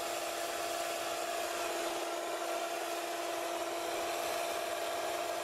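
3D-printed micro Pelton turbine spinning steadily under a garden-hose water jet, its wheel and DC-motor generator giving a steady hum over the hiss of spraying water.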